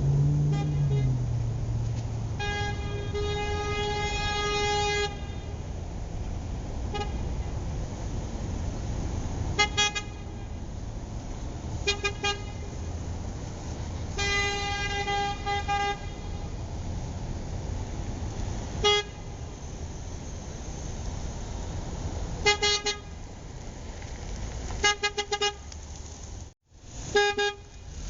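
Car horn honked repeatedly: two long blasts of about two to two and a half seconds each, with single short taps and quick bursts of three or four beeps between them, over a steady low rumble.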